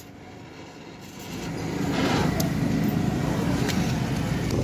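A motor vehicle engine running: quiet for about a second, then coming up over the next second and holding steady.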